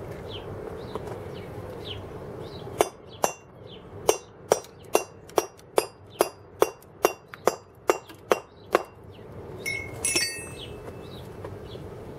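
Round wooden carver's mallet driving a steel chisel into a stone block by hand: about fifteen sharp strikes, two or three a second, starting about three seconds in and stopping near nine seconds. A brief metallic clink follows about a second later.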